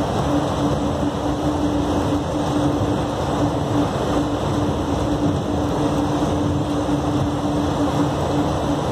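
Steady running noise inside a moving airport people-mover train car: a continuous rumble with a steady low hum.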